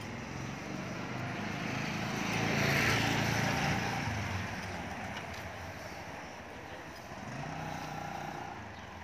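Motorcycle engine running as it rides by on the street, swelling to its loudest about three seconds in and then fading. A fainter engine rises again near the end.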